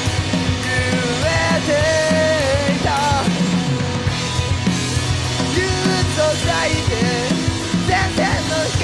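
Midwest emo rock band recording: two guitars, bass and drums playing together, recorded live in one take in a rehearsal room.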